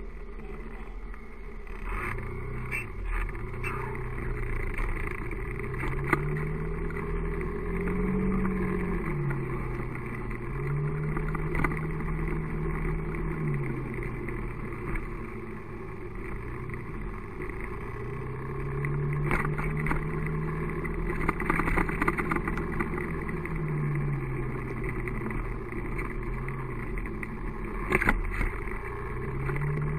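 Vehicle engine running in traffic, its pitch repeatedly climbing as it accelerates, holding, then dropping as it slows, over a steady low rumble. A few sharp knocks stand out, the strongest near the end.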